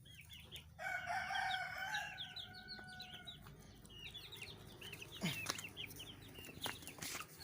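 Chickens: a rooster crows once, a held call of about two and a half seconds starting about a second in, over many short, high chirps repeating throughout.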